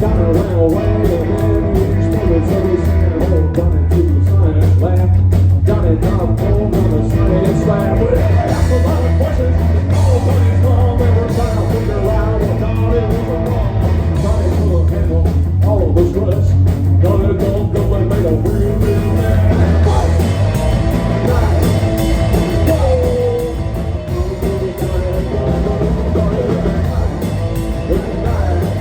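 Live rock band playing loudly, with electric guitar, bass and drum kit, and singing at times.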